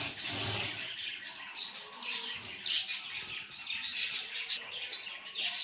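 Steel wool pad scrubbed back and forth over a gas stove top wet with baking soda and vinegar, a scratchy rasp with each stroke, about two strokes a second, scouring off burnt-on grime.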